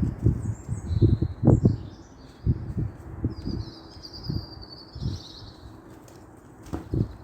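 Wild birds chirping and twittering, several short calls and trills overlapping, over a run of irregular low thuds that are loudest in the first half and come once more near the end.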